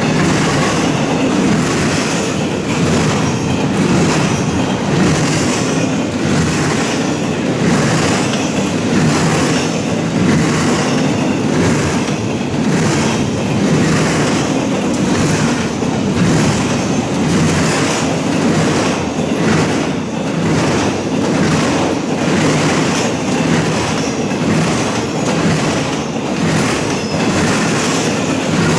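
A train's cars rolling past close by, their wheels clicking over the track in a steady, even rhythm over a continuous rumble.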